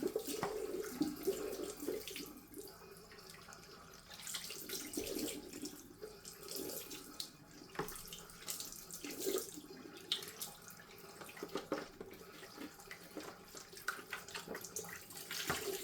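Tap water running and splashing as a washing machine's plastic detergent drawer is rinsed in a sink, its level rising and falling as the drawer is moved under the stream, with a few light knocks and clicks from handling it.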